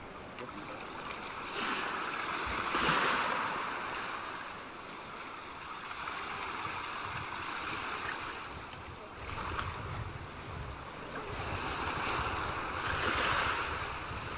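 Surf washing on a shore, rising and falling in slow swells, with some wind rumble on the microphone.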